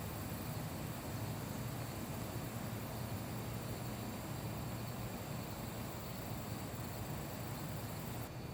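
Steady background hum and hiss with faint constant high-pitched tones, changing abruptly near the end.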